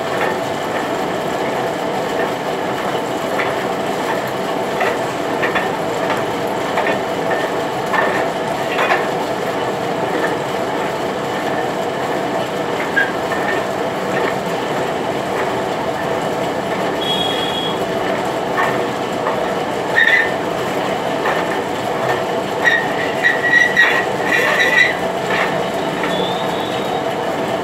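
Metal-turning lathe running steadily, with short high squeals and ticks from the cutting tool on the metal workpiece, coming more often near the end.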